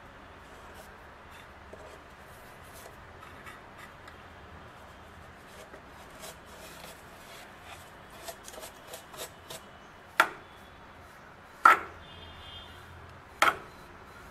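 A brush scrubbing the back panel of a refrigerator, faint scratching and rubbing strokes that grow busier after the middle. Near the end come three sharp knocks, roughly a second and a half apart, which are the loudest sounds.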